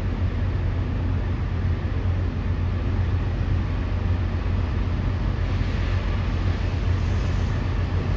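Steady low engine rumble, with a hiss that swells briefly about two-thirds of the way through.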